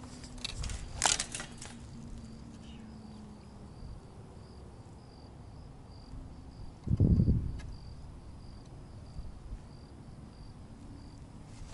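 A cricket chirping steadily, a short high chirp about twice a second. Footsteps crunch on dry dirt and brush in the first two seconds, and a brief, muffled low thump comes about seven seconds in.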